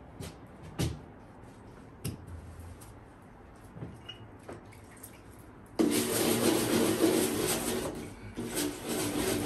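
A few light knocks and clicks, then, about six seconds in, a sponge starts rubbing hard over window glass in continuous strokes.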